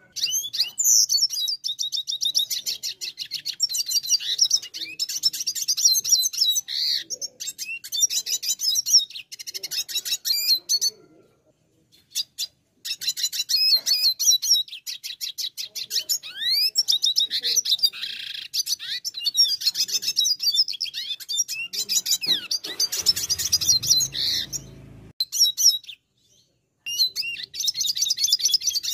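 Red siskin singing a fast, chattering song of high twittering trills in long phrases, with two short pauses. Near the end a brief low noise runs under the song for about two seconds.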